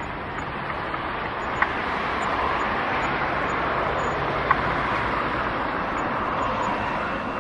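Steady rushing outdoor ambience with a few faint clicks.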